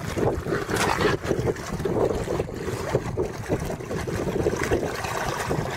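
Strong wind buffeting the microphone, a rumbling, gusty rush that swells and eases irregularly.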